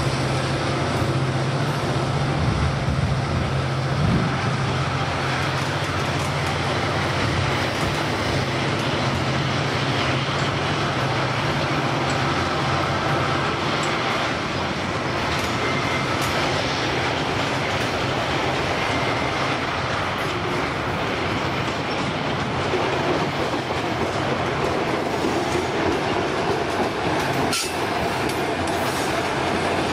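Diesel freight locomotives (a GE C30-7 and EMD GT22CUM-1 units) working past, their engine drone fading over the first dozen seconds, then loaded freight cars rolling by with steady wheel rumble and clatter over the rail joints. A brief faint wheel squeal comes about halfway through and a sharp knock near the end.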